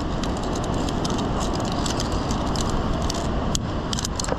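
Steady rushing wind on the microphone, with many light metallic clicks and jangles from via ferrata climbing gear: carabiners and lanyard on the steel safety cable.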